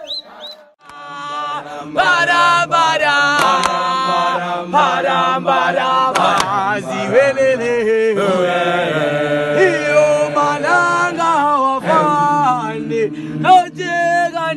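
A group of people singing a gwijo, the South African group chant, in unison without instruments. It starts about a second in.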